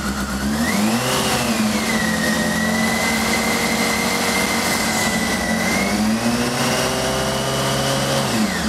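Motorcycle engine held at raised revs to warm it up. The revs climb about a second in, stay high and steady for several seconds, and drop back near the end.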